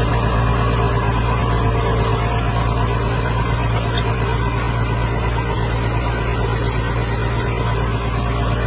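Massey Ferguson 399 tractor's diesel engine running steadily under load, pulling a four-furrow plough through the soil.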